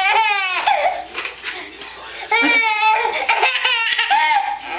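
A young child laughing: two bouts of rapid, high-pitched, pulsing laughter, one at the start and another starting about two seconds in.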